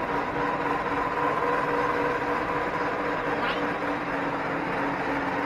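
Pedal-driven abrasive grinder grinding steel, throwing sparks: a steady pitched whine over a noisy hiss, with crowd chatter behind it.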